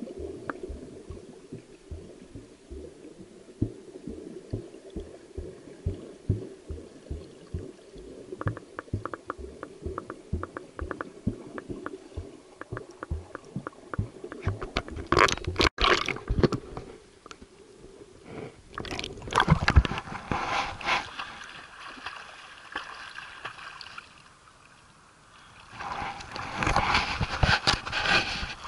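Muffled underwater sound of a snorkeler swimming, heard through a submerged camera, with a run of soft low knocks a few times a second. Bursts of splashing follow, the loudest near the end as the camera breaks the surface.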